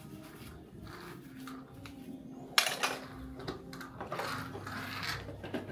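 Dishes and utensils being washed by hand in a basin: a sharp knock about halfway through, then scattered clinks and scrubbing.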